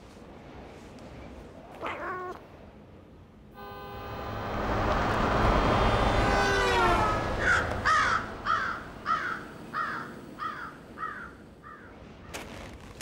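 A cat meows once about two seconds in. A rushing sound then swells up, carrying a steady tone that drops in pitch as it fades, and after it crows caw about eight times in quick succession.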